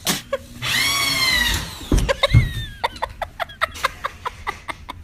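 A person's high-pitched cry that rises and falls, after a sharp click, followed by a run of short rhythmic bursts of about four a second that sound like laughing.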